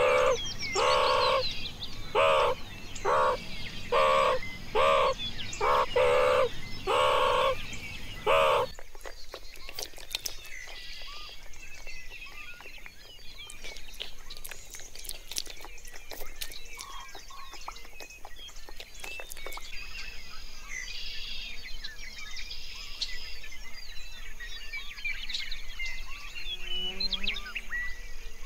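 A meerkat giving a string of short calls, roughly one a second, for the first nine seconds or so. Then quieter birds chirping with scattered sharp clicks.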